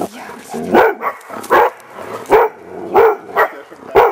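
Hunting dog barking steadily and repeatedly, about one loud bark every 0.7 seconds, baying at a wild boar.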